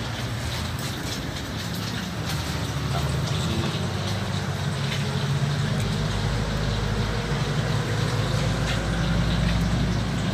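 Steady low rumble of a running engine, growing deeper and stronger a little past halfway, with a few faint clicks on top.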